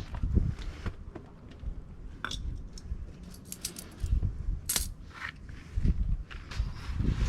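Light metallic clinks and taps of tools and small metal parts being handled, with a quick run of clicks a little past three seconds in, over low rumbling handling noise.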